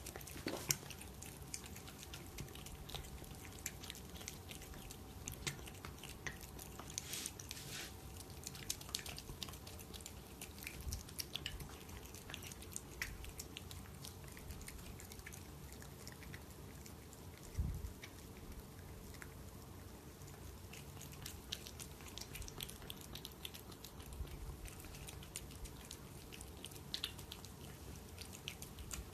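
A cat eating wet food from a bowl: soft, scattered chewing and lapping clicks, with a faint steady hum behind. One dull thump comes about two-thirds of the way through.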